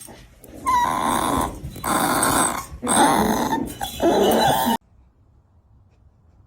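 A dog growling in three stretches, each about a second long, stopping suddenly near the end.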